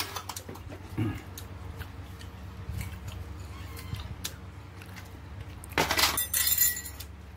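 Someone eating a cooked dog leg joint with his hands: small clicks and mouth noises, then a louder noisy burst of biting and tearing at the meat about six seconds in. A standing electric fan hums steadily underneath.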